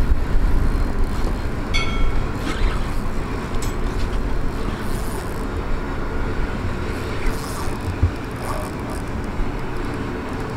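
Steady low outdoor rumble of wind buffeting the microphone mixed with distant traffic noise, with a brief high tone about two seconds in.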